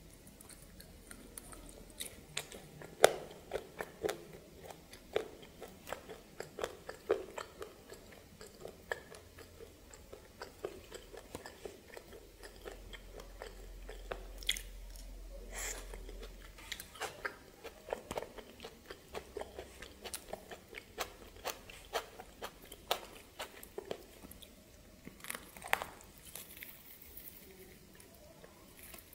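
Close-miked eating sounds: a person biting and chewing steamed snake and fresh tomato, a steady run of sharp, irregular crunching clicks.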